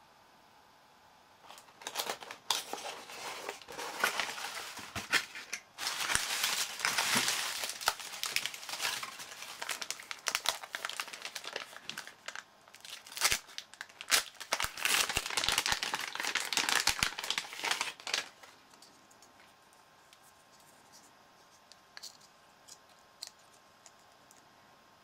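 Plastic packaging crinkled and rustled by hand as items are unwrapped: about sixteen seconds of dense crackling with sharp crunches, then it stops and only a few faint clicks follow near the end.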